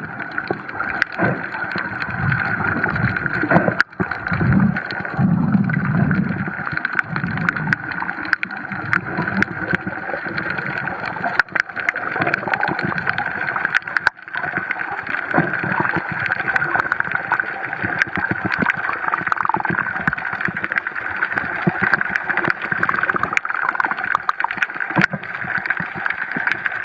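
Water sloshing and gurgling close around the microphone, with scattered sharp clicks and a few low swells of bubbling.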